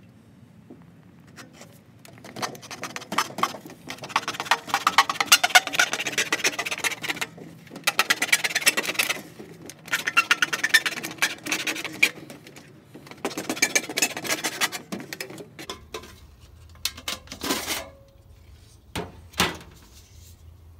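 Knife blade sawing through the thin sheet-metal wall of a popcorn tin: four bursts of fast rasping, clicking strokes, each lasting a few seconds, with the tin ringing faintly. Near the end the cutting stops and only a few separate clicks and knocks are heard.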